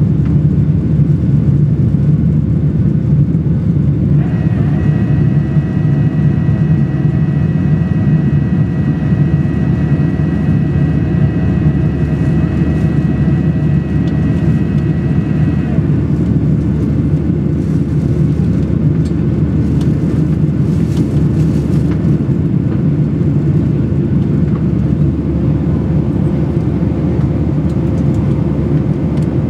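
Cabin noise of a Boeing 737-800 in its climb after takeoff: the steady roar of its CFM56 engines and the airflow, heard from a window seat over the wing. A steady high whine joins about four seconds in and stops abruptly some twelve seconds later.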